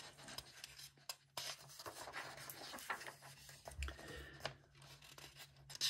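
Paper rustling and rubbing as a hand turns over and smooths down a page of a paperback colouring book.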